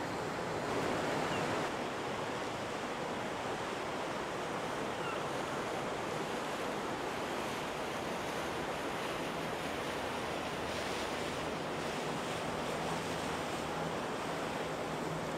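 Water washing and splashing steadily, with wind on the microphone. A faint low steady hum comes in past the middle.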